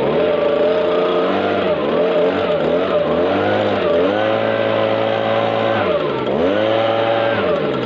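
STIHL BG 56 leaf blower's two-stroke engine running and being throttled up and down. Its pitch rises and falls several times, holds high for a couple of seconds, then dips sharply and climbs again before easing off at the end.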